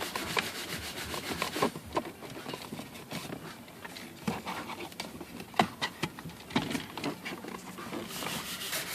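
Plastic dashboard trim and air duct being handled and fitted into place: scattered clicks and light knocks over faint rubbing of plastic on plastic.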